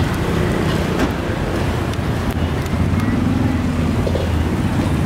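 Steady low rumble of street traffic beside a charcoal grill stall, with a few light clicks of metal tongs on the grill grate. A steady engine hum joins about three seconds in.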